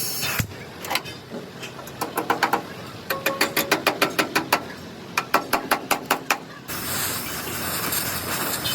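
Hammer strikes on the truck cabin's sheet metal: a few scattered knocks, then a quick regular run of about five strikes a second. A steady rushing noise starts near the end.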